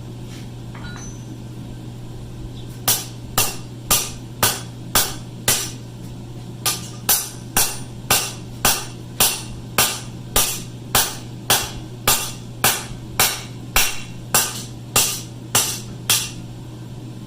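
Hand hammer striking steel on an anvil in a steady run of about two ringing blows a second, with a short pause a third of the way through, shaping a steel ring. A steady low hum runs underneath.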